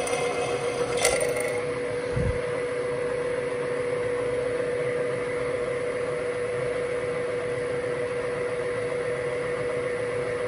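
Milling machine spindle running steadily with a drill bit in the chuck, drilling holes in a steel plate, an even hum throughout. A sharp click about a second in and a short low thump about two seconds later.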